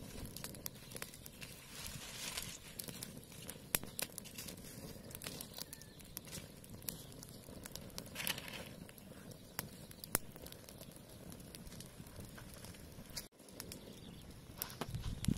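Small open fire of dry twigs and leaves crackling, with irregular sharp pops.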